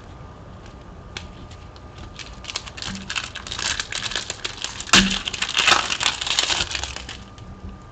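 Foil wrapper of a Panini Prizm trading card pack being crinkled and torn open. It is a crackly rustle that builds about two and a half seconds in, with a sharp snap about five seconds in, and dies down near the end.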